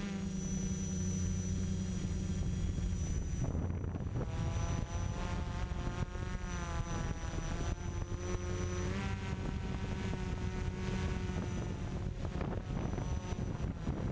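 Hexacopter's electric motors and propellers whirring, heard from the camera mounted on the craft. The pitch rises and falls with the throttle as it climbs, most of all between about four and nine seconds in.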